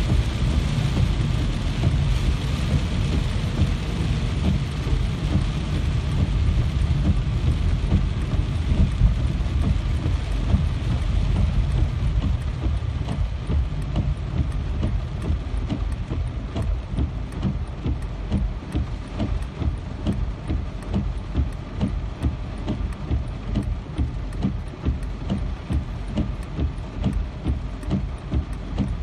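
Steady heavy rain falling, with a deep low rumble beneath it. The rain eases gradually from about the middle onward, and individual drops stand out more towards the end.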